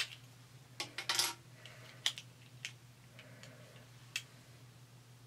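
Hard plastic action figures being handled off-camera: a handful of sharp clicks and taps, with a short clatter just over a second in.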